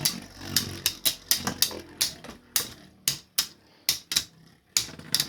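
Two 3D-printed plastic Beyblade spinning tops knocking together repeatedly in a stadium, an irregular run of sharp clicks that comes less often toward the end. This is Jackal's "death spiral", which stalls the opponent in the centre and wears it out.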